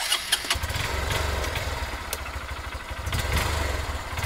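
Motorcycle engine running hard, a deep fast-pulsing exhaust note with scattered sharp cracks over it.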